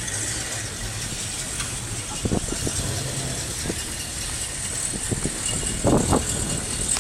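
Car engine running at low speed as a classic car rolls slowly past, a steady low hum over constant street noise, with a couple of louder bursts about six seconds in.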